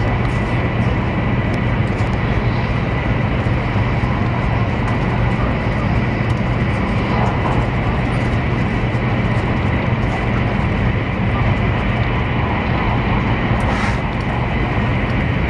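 Steady low rumble and rush of a Taiwan High Speed Rail bullet train running at speed, heard from inside the passenger cabin, with a faint steady high-pitched whine over it.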